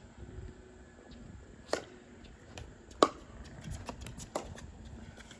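Pickleball paddles striking a hard plastic pickleball in a rally: a few sharp pops spaced about a second apart, the loudest about three seconds in.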